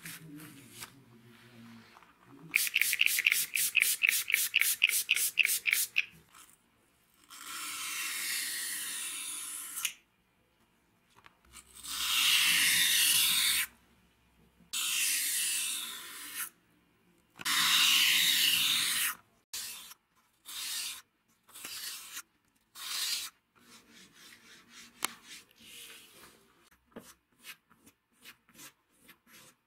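A steel straight-razor blade rubbed on wet sandpaper: a run of quick scraping strokes, about four a second, then several longer rasping passes. Near the end come light, quick strokes of the blade along a leather strop.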